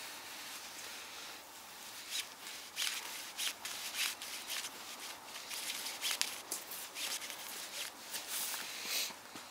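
A custom bushcraft knife shaving curls down a wooden stick to make a feather stick: a series of short scraping strokes, about two a second, each a dry rasp of steel on wood.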